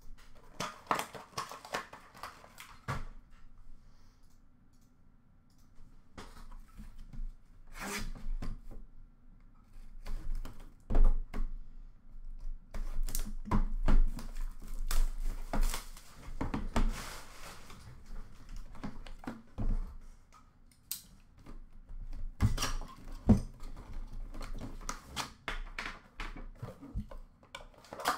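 Hands unwrapping and opening a box of Upper Deck The Cup hockey cards: crinkling and tearing of the wrap, cardboard sliding and rubbing, with scattered knocks and taps as the box and its tin are handled.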